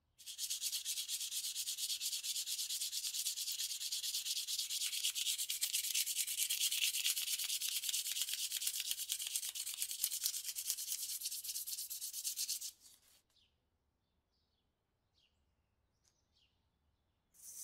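Brass cartridge-case lighter body being sanded by hand: a fast, steady scratchy rasp of many quick strokes that stops about 12 to 13 seconds in. A few faint ticks and a brief scrape follow near the end.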